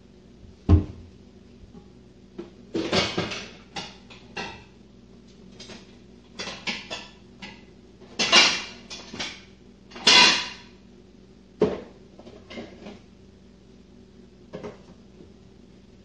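Kitchen chopper being handled: a sharp knock about a second in, then irregular clatters, rattles and a few short rasping bursts, the loudest two near the middle. There is no steady motor run.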